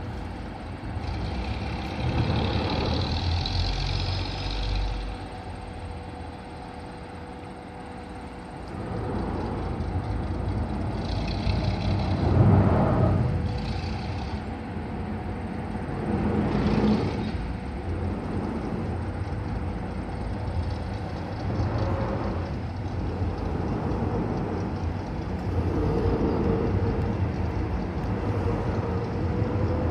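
Arcade & Attica Railroad diesel locomotive running, heard from a distance as a steady low engine rumble. Several brief louder surges with hiss come over it, the loudest about halfway through.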